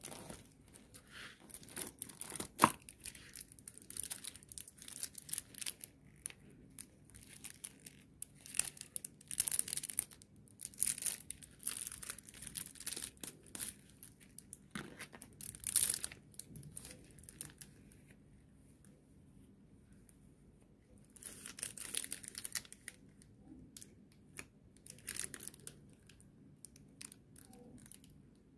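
Clear plastic protective sleeves on makeup brushes crinkling and rustling as gloved hands slide them off the brush heads and pull brushes from a brush roll. Irregular crinkles and rubbing come in bursts, with a couple of sharp clicks standing out, then a quieter spell in the last third before a few more crinkles.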